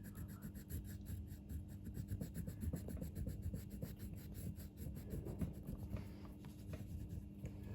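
Faint, scratchy rubbing of an orange colour being stroked quickly back and forth over drawing paper while shading in an area.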